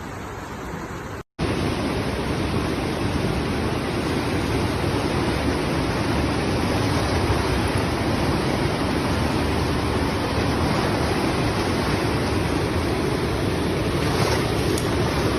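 Steady rush of fast-flowing floodwater, breaking off briefly about a second in and coming back louder.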